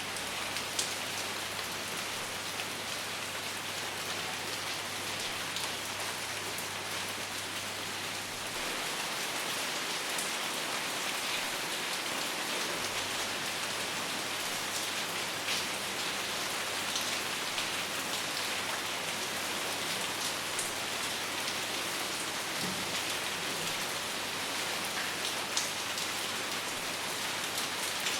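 Steady rain falling, with individual drops ticking through the steady hiss.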